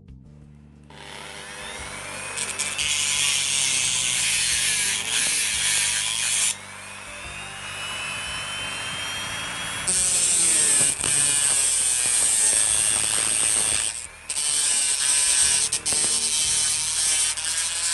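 Harsh, rasping noise of a tool working a small part in long stretches, with short breaks about six and fourteen seconds in.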